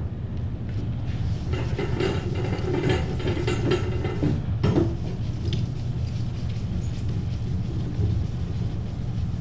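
Hand wet sanding of clear coat with 2000-grit paper on a soft hand pad: a light sizzle of the wet paper rubbing back and forth, fine because the finer grit is cutting less. A work table rattles along, with one knock about halfway, over a steady low hum.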